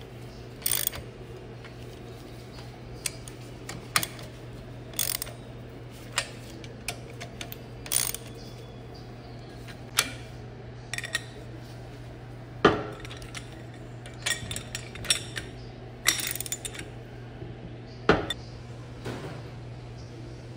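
Socket wrench working the nuts on a cast-iron pump volute's flange bolts: irregular sharp metal clicks and clinks, about one every second or so, with a quicker cluster in the second half. A steady low hum runs underneath.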